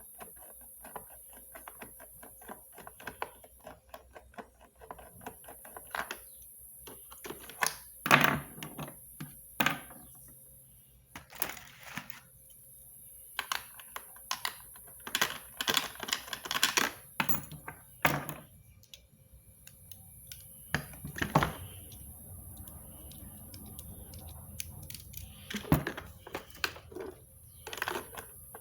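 Irregular clicks, taps and knocks of hard plastic and metal parts being handled during a vacuum cleaner repair, with several louder clattering bursts between quieter stretches of small clicks.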